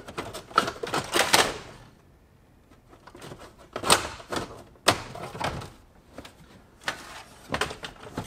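Irregular sharp clicks and knocks of hands handling parts while a boost gauge and its vacuum line are fitted in a car. There is a cluster in the first second and a half, a short lull, then scattered single clicks.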